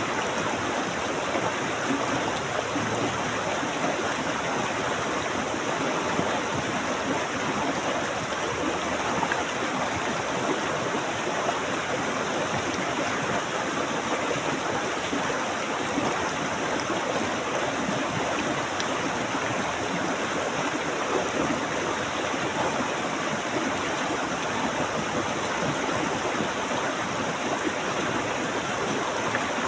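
Flowing water, like a stream, rushing steadily without a break.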